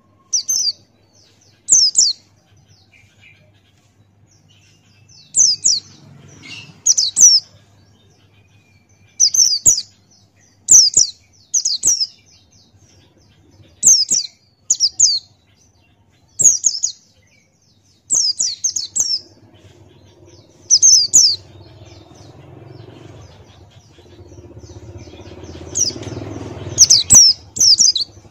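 Pleci buxtoni white-eye singing: short, high chirping phrases, each a quick falling sweep, repeated every second or two. A low rumbling background noise builds up over the last several seconds.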